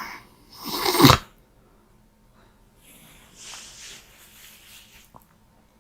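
A sleeping woman snoring: one loud snore that builds to a sudden peak about a second in, then a softer breathy breath a few seconds later.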